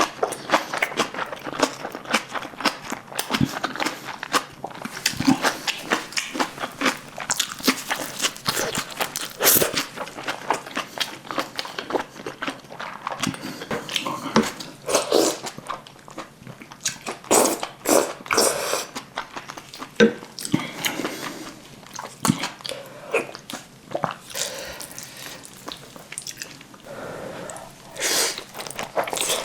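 Close-miked eating of black bean noodles and spicy kimchi: chewing, crunching bites and many short wet mouth clicks, irregular throughout with louder clusters of bites.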